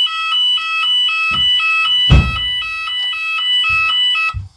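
Shop fire alarm sounding its two-tone evacuation signal: a high and a low tone alternating about four times a second, cutting off suddenly near the end. A few dull thumps sound under it, the loudest about two seconds in.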